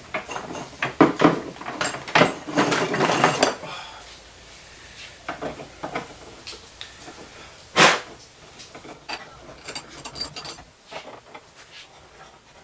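Metal tools and parts clattering and clanking as they are handled, a run of knocks and rattles followed by one sharp knock about eight seconds in and scattered lighter taps after it.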